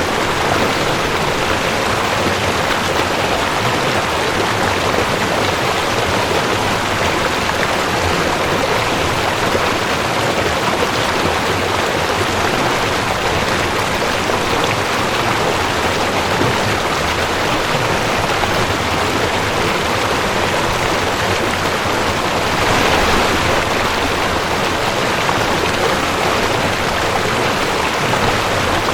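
Mountain stream rushing over rocks: a steady, even rush of flowing water, swelling slightly about three quarters of the way through.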